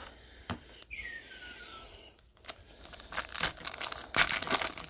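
A foil card-pack wrapper crinkling and tearing as a pack of baseball cards is opened. The crackling comes in the second half and grows loudest near the end, after a faint click and a short falling squeak.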